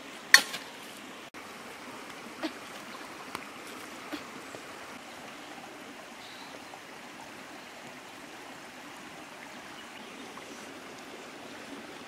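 Stream water flowing and trickling steadily over rocks, with a few sharp knocks in the first four seconds, the loudest about half a second in.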